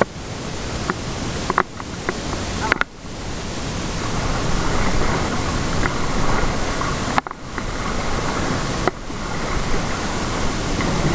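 Steady rushing noise of river water flowing around an inflatable raft, heard from a camera on the raft, with a few faint clicks. The noise drops away briefly and suddenly three times.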